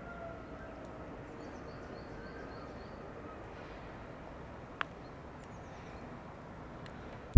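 Quiet outdoor ambience with a small bird chirping in two quick runs of short high notes, and a single sharp click about five seconds in.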